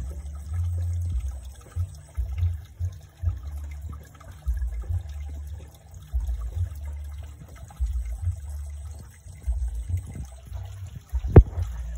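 Shallow stream water sloshing and trickling as someone wades and gropes by hand in a small pool, under a low, uneven rumble. A single sharp knock near the end is the loudest sound.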